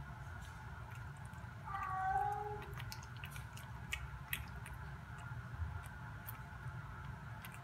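Domestic cat giving one short meow about two seconds in, followed by a scatter of faint clicks, over a steady low hum.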